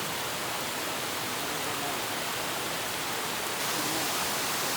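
A steady, even hiss with no distinct events, and a few faint voice fragments in it.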